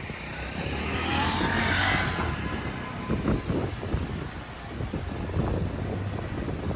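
Street ambience with a vehicle passing, loudest about one to two seconds in, over a steady low hum, followed by scattered short knocks and traffic noise.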